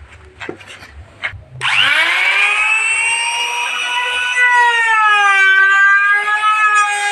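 A few light knocks, then about a second and a half in a power woodworking machine starts. Its motor whine rises quickly in pitch as it spins up and settles into a loud, steady high whine that wavers slightly.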